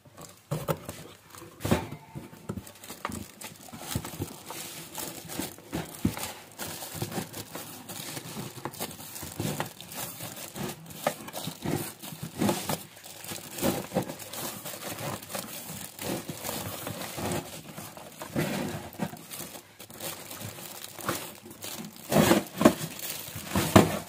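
Plastic wrap and cardboard packaging crinkling and rustling as a wrapped electric room heater is slid out of its box. Irregular scrapes and light knocks run through it, busiest toward the end.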